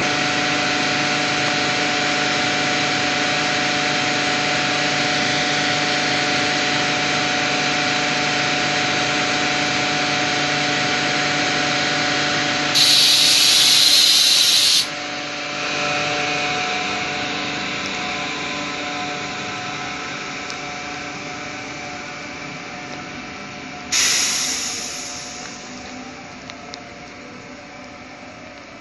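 Electric multiple-unit regional train standing at the platform, its onboard equipment humming steadily with several fixed tones. About halfway through, a loud hiss of released compressed air lasts about two seconds. After that the hum slowly fades, and a second sudden hiss comes near the end.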